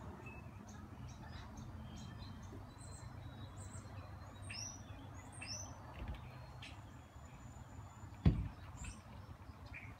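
Small birds chirping outdoors in short, high calls scattered through, over a low steady background hum. About eight seconds in comes a single sharp thump, the loudest sound here.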